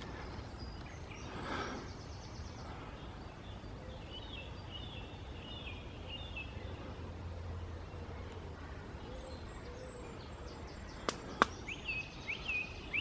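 Woodland ambience: small birds chirping in short repeated phrases over a steady low rumble, with two sharp clicks about eleven seconds in.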